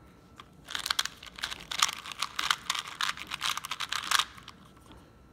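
Plastic 2x2 speed cube (SCS Cosmic) being turned rapidly by hand, a quick run of clacking layer turns that starts about a second in and stops a second before the end.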